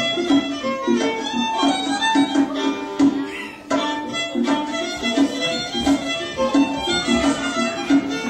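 Instrumental music with quick, short notes, dipping briefly about three seconds in.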